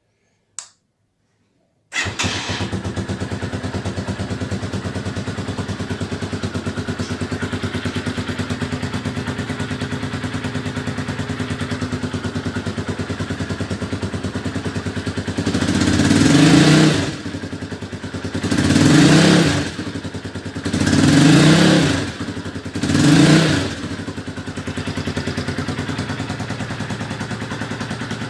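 Z 250 motorcycle with a custom removable sport exhaust: a short click, then the engine starts about two seconds in and idles steadily. Past the middle it is revved four times in quick succession, each rev rising and falling back, then settles to idle again.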